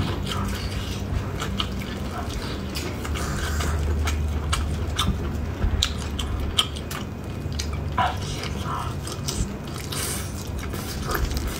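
Close-up eating sounds: biting and chewing of glazed meat, with wet mouth clicks and smacks at irregular intervals over a steady low hum.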